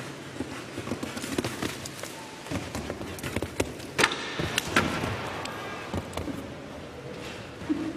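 A horse's hoofbeats cantering on arena sand, a run of thuds, with the loudest, sharpest impacts about four seconds in around a jump.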